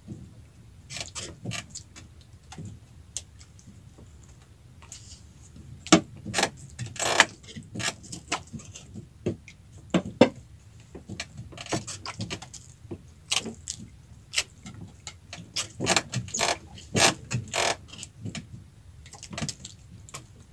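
Irregular clicks, taps and knocks of hands working a handline hook and line and knocking against the wooden hull of a small fishing boat.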